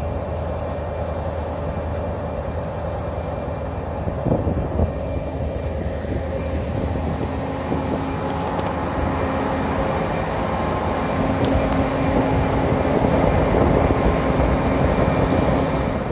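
Ferry engines droning steadily, heard from the open deck as a low hum over a continuous rushing noise of wind and churned wake water. It grows a little louder over the last several seconds.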